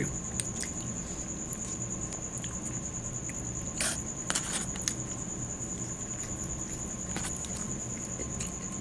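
Mouth sounds of someone eating fried chicken and mashed potatoes: scattered chewing clicks and smacks, the loudest around four seconds in, over a cricket's steady high-pitched trill.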